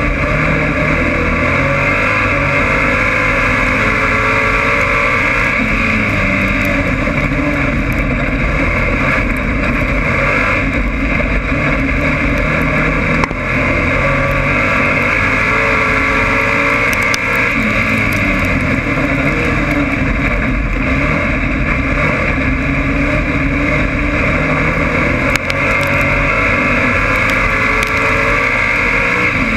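A dirt-track stock car's engine heard from inside the car, running hard at racing speed. Its pitch rises and falls in long swells as it laps.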